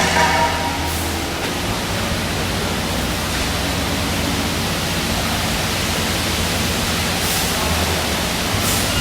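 A steady rushing noise over a low engine hum, as from a concrete truck running on site.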